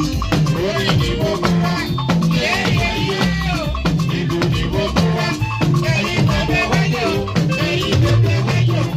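Live band music: melodic instrument lines over a steady drum beat and fast, even percussion.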